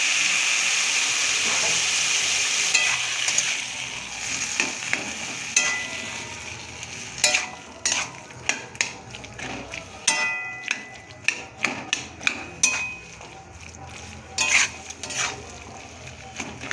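Loud sizzling as the chickpeas' boiling water hits the hot, frying masala in a kadai, dying down after three or four seconds. Then a spatula scrapes and knocks against the kadai in irregular strokes as the chickpea and potato curry is stirred.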